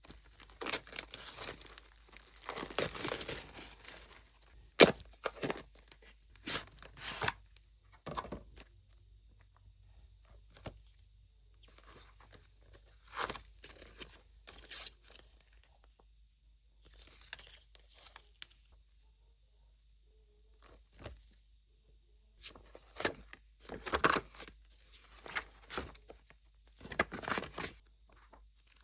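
Packaging being torn open and crinkled by hand: a long tear through the first few seconds, then scattered short rustles and sharp clicks of handling with quiet gaps between.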